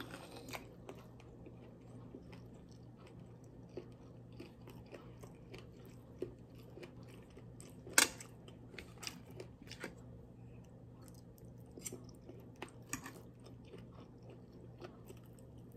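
Close-up chewing and mouth sounds of a person eating spinach omelette and sausage, with small clicks of a fork on a plate, the sharpest about eight seconds in.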